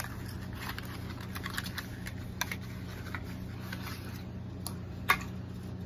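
Small, irregular clicks and taps of a cosmetic product's box and glass spray bottle being handled and unpacked, with one sharper click about five seconds in.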